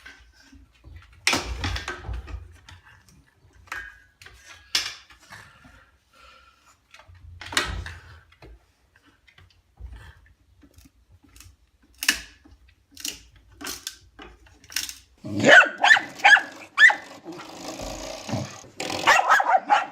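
A dog barking and growling: scattered short sounds at first, then a loud, sustained bout of barking and growling from about three-quarters of the way in.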